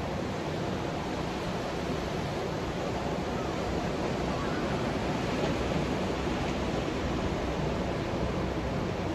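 Ocean surf breaking along a beach: a steady, continuous wash of waves.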